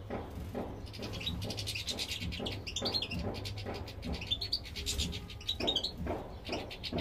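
A flock of small aviary finches, European goldfinches and canaries, chirping and twittering in quick short notes.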